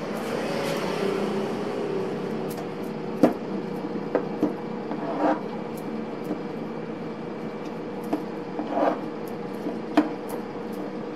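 Metal dough cutter chopping through bread dough and knocking on a wooden board: a few sharp knocks and some softer thuds as dough pieces are set down, over a steady background hum.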